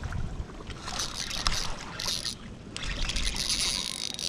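Shimano Nasci 1000 spinning reel being cranked in two short spells of retrieve as a soft shrimp lure is worked back through the water.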